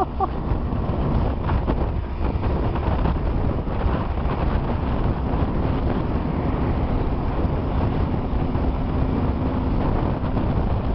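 Wind rushing over the microphone and the rumble of a vehicle moving at road speed, heard from on top of the vehicle. A faint low steady hum joins about halfway through.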